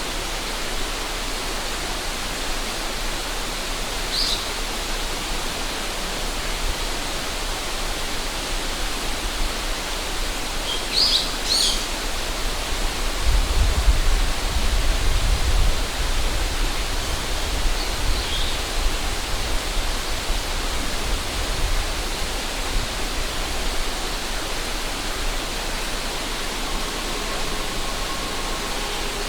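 River water rushing steadily, with a few short bird chirps about four seconds in, around eleven to twelve seconds and near eighteen seconds. Low wind rumble on the microphone swells for several seconds midway.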